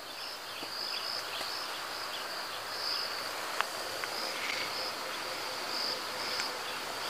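Wind gusting over the microphone, swelling over the first second, with insects chirping in short, high, repeated pulses. A single sharp tick about three and a half seconds in.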